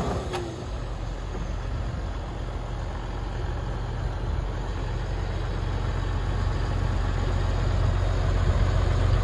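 2009 John Deere 750J crawler dozer's diesel engine running at a low, steady speed, a low hum that slowly grows louder.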